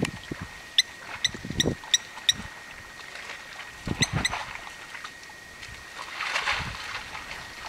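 Short, sharp high calls, five in quick succession about a second in and two more about four seconds in, over low sloshing as an elephant calf wades out of wet mud.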